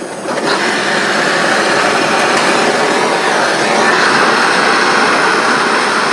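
Gas torch flame burning with a steady hiss, heating a rusted, seized exhaust manifold stud and nut until they glow cherry red to break them loose. The hiss eases off near the end.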